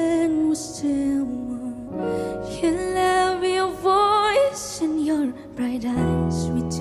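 A young woman singing a slow, tender ballad, with vibrato on held notes, over piano accompaniment.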